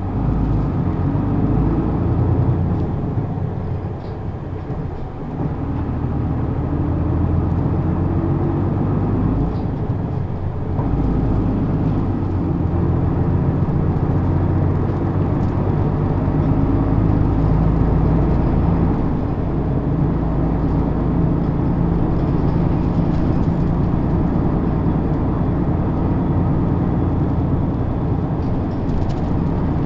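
Isuzu Erga (PKG-LV234N2) city bus's six-cylinder diesel engine and running gear under way, heard from inside the cabin. The engine note dips briefly twice in the first ten seconds or so, then runs steadily.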